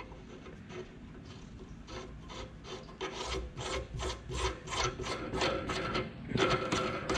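A steel nut being spun by hand onto a freshly cut 3/4-16 thread on a shaft held in a lathe chuck, to check the fit. Metal rasps on metal, faint at first, then in quick repeated strokes about three a second from about three seconds in.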